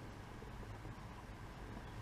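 Faint steady low hum with an even background hiss; no distinct handling sounds stand out.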